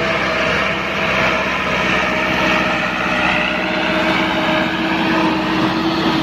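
Massey Ferguson 385 tractor's four-cylinder diesel engine running steadily, with a steady tone riding over the engine note.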